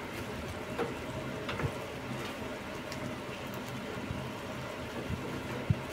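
Sugar syrup with raw mango pieces bubbling steadily in a kadai while a wooden spatula stirs, with a few soft knocks of the spatula against the pan.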